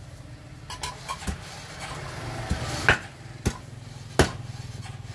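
Meat cleaver chopping boiled meat on a wooden chopping board: half a dozen sharp, irregular chops, the loudest three in the second half.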